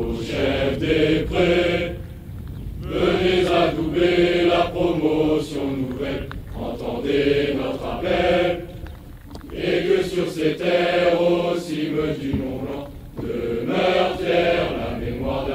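A large group of gendarme trainees singing a song together in unison, in sung phrases with short breaks for breath.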